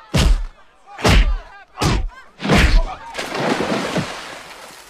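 Four heavy film-style punches land about a second apart, each with a grunt. Then a body splashes down into shallow water, and the splash spreads out and fades over about a second and a half.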